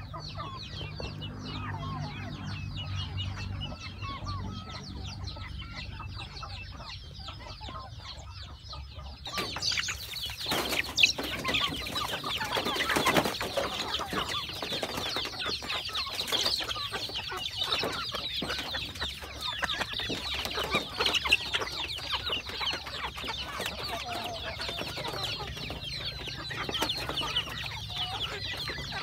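A flock of young chickens clucking and chirping with many short, overlapping calls. About a third of the way through, the calls become louder and busier.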